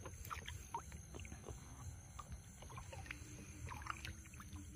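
Faint, scattered small splashes and drips of river water as a freshly shot bird is plucked and rinsed by hand over the side of a boat.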